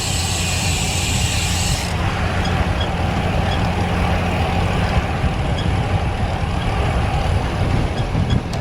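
Steady wind rush on a GoPro's microphone, with tyre noise from a road bike rolling at speed on pavement. A high hiss in the mix drops away about two seconds in.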